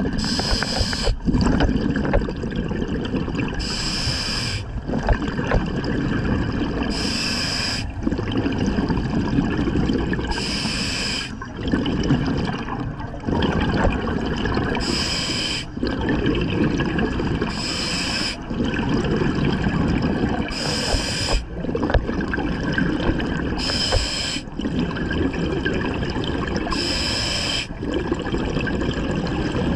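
Scuba diver breathing through a regulator underwater: a short hissing inhale through the demand valve every three to four seconds, each followed by a longer burbling rush of exhaled bubbles.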